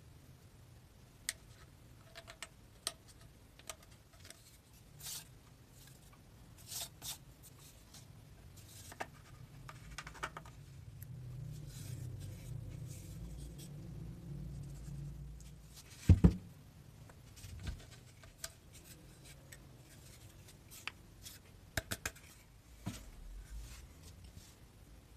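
Hard PVC pipe pieces and a plastic disc being handled and fitted together on a cloth-covered table: scattered light clicks and scrapes, with a sharp double knock about 16 seconds in.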